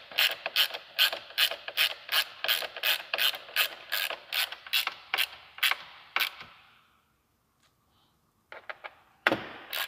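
Hand-turned T-handle driver supplied with the Jeep ratcheting as a roof bolt is snugged down: an even run of clicks, two or three a second, that stops about two-thirds of the way through, with a few more clicks near the end.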